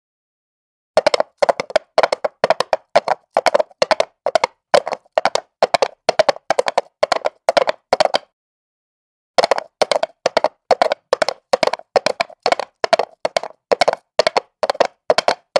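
A rapid run of sharp taps, often in close pairs, about three to four a second, breaking off for about a second midway before starting again.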